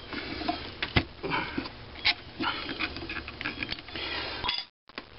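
Small metal clicks and knocks as the three-jaw chuck of a Sherline micro lathe is loosened by hand and the finished venturi sleeve is taken out, with a sharper knock about a second in.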